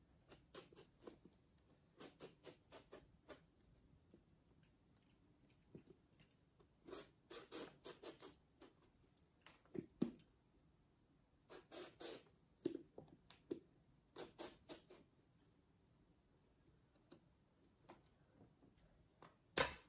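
Faint scraping of a vegetable peeler drawn along an eggplant, stripping the skin in short strokes that come in quick runs of three to five with pauses between. A sharp click near the end.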